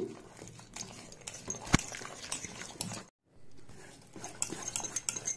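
Wire whisk stirring wet whole-wheat flour batter in a steel bowl: irregular light clicks and scrapes of the wires against the bowl, with one sharp clink a little under two seconds in. The sound drops out for a moment just past the middle.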